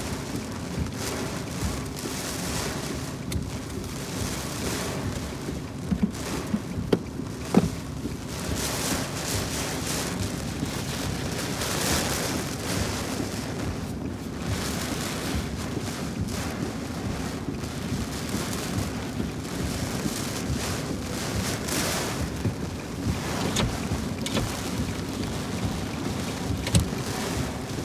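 Thunderstorm rain and wind, a steady dense hiss that swells and eases, with a few sharp knocks about six to eight seconds in and another near the end.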